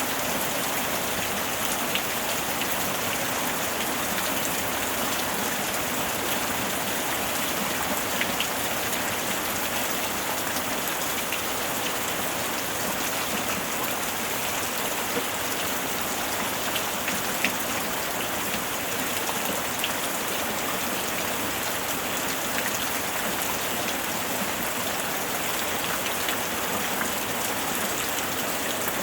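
Steady rain falling, an even hiss with a few scattered sharper drop ticks, and no thunder.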